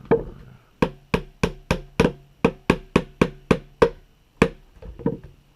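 A dozen or so sharp metal taps, about three or four a second, with a short ring after each, then a few lighter taps near the end: a small hammer striking a punch to drive the tight new back-strap pin into a Glock 19 Gen 4's polymer frame.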